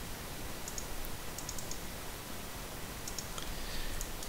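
Light, quick clicks in small clusters of two to four, heard a few times, over a steady background hiss.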